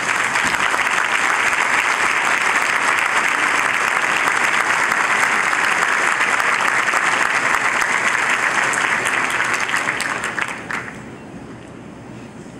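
Audience applauding, dense and steady, then dying away about eleven seconds in.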